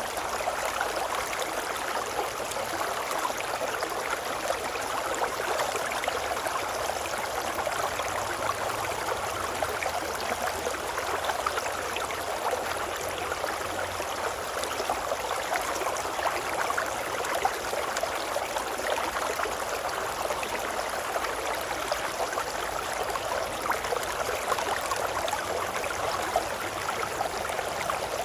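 River water babbling steadily: an even rush of running water with many small splashes.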